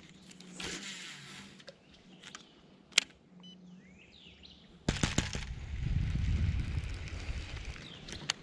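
Handling noise from a baitcasting rod and reel worked close to the microphone during a cast and retrieve: a single sharp click about three seconds in, then from about five seconds a steady low rumbling rattle. A bird chirps faintly in between.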